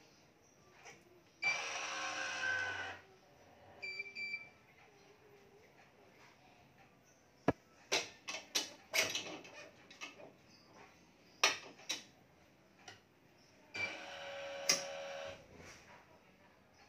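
Electronic tensioner of a digital badminton stringing machine whirring as it pulls a BG66 string to tension, twice, each pull about a second and a half long. A short beep follows the first pull. Sharp clicks and taps of the clamps and string come in between.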